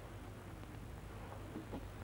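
Quiet old film soundtrack: a steady low hum with a few faint, scattered ticks.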